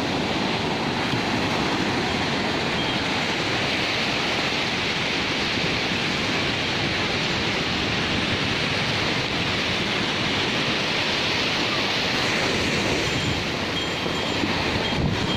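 Sea surf breaking and washing up a sandy beach: a steady, unbroken rush of water noise.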